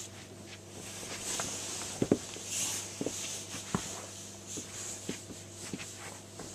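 Feet stepping out of slide sandals and into a pair of Air Jordan 7 sneakers on carpet: a handful of short thumps, the loudest two about two seconds in, with rustling between them.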